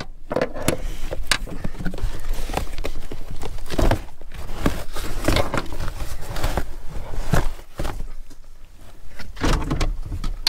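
Hands working a stiff rubber trim piece and foam padding loose from a car's floor pan by the firewall: irregular scraping, rustling and sharp knocks as the material is pulled and bent.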